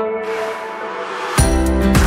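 Background music: held notes, then a beat with drums and bass comes in about one and a half seconds in.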